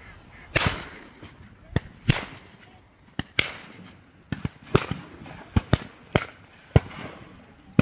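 A volley of shotgun shots from duck hunters, about a dozen sharp bangs in under eight seconds at uneven intervals, some louder and nearer than others, each trailing off in a short echo.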